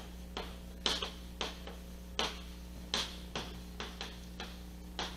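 Chalk on a blackboard as words are written: a string of short, irregular taps and strokes, about one or two a second, over a steady low hum.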